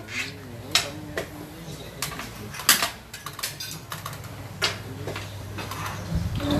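Several sharp clacks of hard objects knocking together, a second or two apart, over a low steady hum.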